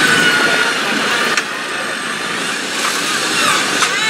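Modified Land Rover Discovery trial truck's engine running hard as it crawls up a pile of boulders, its tyres scrabbling on the rock. Two sharp knocks come through, about a second and a half in and again near the end.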